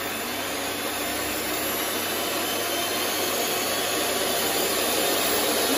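Two small electric hand mixers, a Miyako SM-625 and a Cosmos CM-1689, running together at high speed with their wire beaters spinning in the air, giving a steady motor whir.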